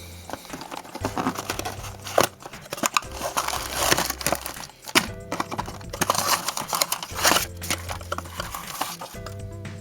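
Toy packaging being handled and opened: irregular crinkling, rustling and sharp clicks and crackles. Music comes back in near the end.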